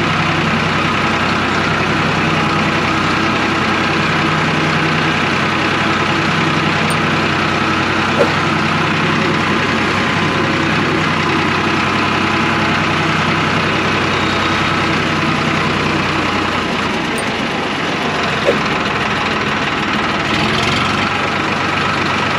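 Eicher 555 tractor's diesel engine running with a low, steady note; about sixteen seconds in, its low note weakens and changes. Two brief knocks sound along the way.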